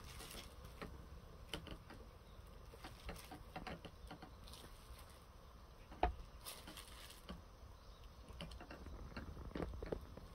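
Faint handling noises from plastic bottles and a glass pipette on a plastic-covered table: scattered small clicks and taps, with one louder knock about six seconds in as the red cresol bottle is gripped.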